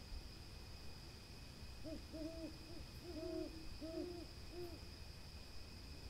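Burrowing owl giving a quick run of about eight short, low hooting notes, starting about two seconds in and ending near five seconds. A steady, high-pitched insect buzz runs underneath.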